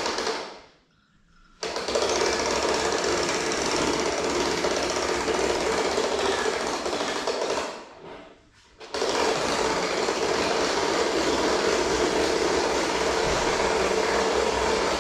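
A motor-driven machine running with a fast, steady rattle. It winds down and stops twice for about a second, then starts again abruptly.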